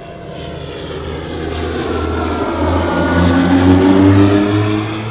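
Propeller-driven aircraft flying past, its engine note growing louder to a peak about four seconds in, then starting to fade, with the pitch drifting slightly.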